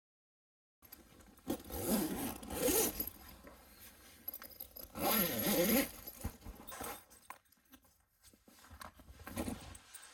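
A zipper pulled in two long rasping strokes, with scraping and rustling between and after them.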